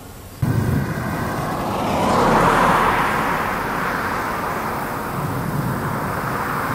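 A car passing close by and driving away: tyre and engine noise swells to its loudest two or three seconds in, then slowly fades. It cuts in suddenly just under half a second in.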